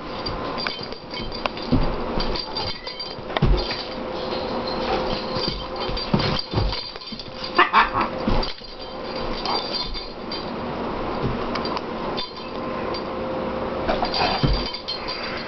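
A Great Dane puppy scuffling with a scarlet macaw on a blanket: rustling fabric, paw steps and scattered dull thumps, uneven and irregular throughout.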